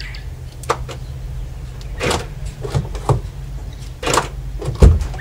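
A series of clicks and clunks from a Holden Commodore VE driver's door lock and handle, ending in a louder low thump as the door is unlatched and opened.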